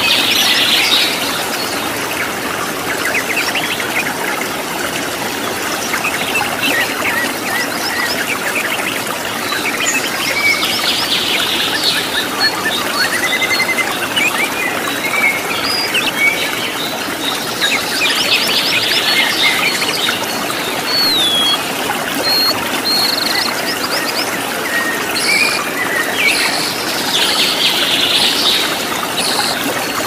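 Steady rush of a waterfall with wild birds calling over it: a burst of rapid chirping recurs every eight to ten seconds, with short scattered whistles in between.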